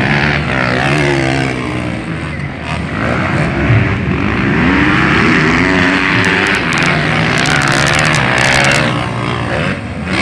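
Several motocross dirt bike engines racing on the track, their overlapping revs rising and falling in pitch as the riders work the throttle through jumps and turns. A run of sharp clicks sounds between about six and nine seconds in.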